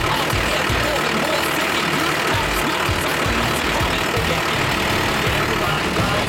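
Off-road vehicle engine running steadily, with a dense wash of noise over it.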